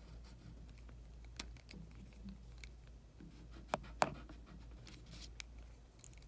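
Pencil scratching faintly on paper in short sketching strokes, with a couple of sharp taps about four seconds in.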